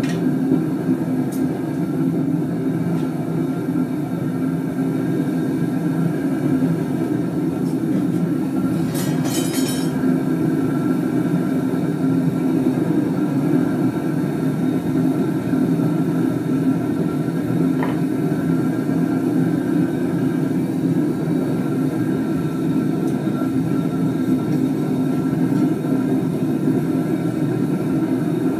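Gas burner firing steadily into a homemade foundry furnace built from an old gas cylinder: a continuous low rushing roar of burning gas, with a brief high hiss about nine seconds in.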